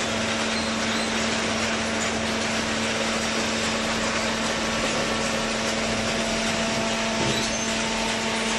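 Hydraulic paper baler's motor and pump running steadily: an even machine noise with a constant hum.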